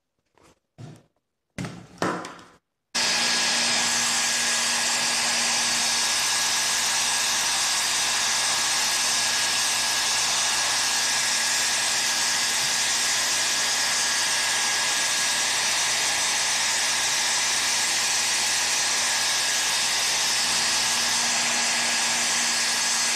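Handheld hair dryer switched on about three seconds in and blowing steadily: an even rush of air with a faint steady whine from its motor. A few light handling knocks come before it starts.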